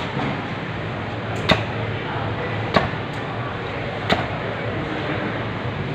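A heavy cleaver chopping through grouper flesh and bone onto a thick wooden chopping block: three sharp chops at a steady pace, a little over a second apart, over a steady background hum.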